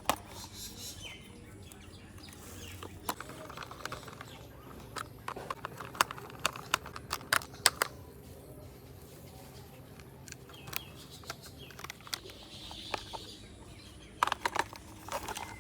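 Screws being driven with a small screwdriver into a plastic toy car's underside: scattered sharp clicks and taps of metal tool on plastic, coming in clusters.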